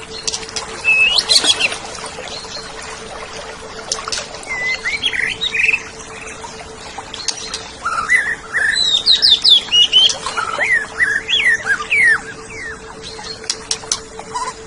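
Oriental magpie-robin (kacer) singing: bouts of varied whistled notes that slide up and down, mixed with sharp clicks, busiest in the second half. A steady low hum runs underneath.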